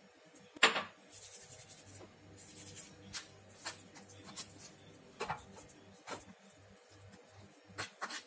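Hands working oiled focaccia dough in a metal baking tray: rubbing and squishing, with a string of short taps and clicks as fingers press the dough against the pan. A sharp knock about half a second in is the loudest sound.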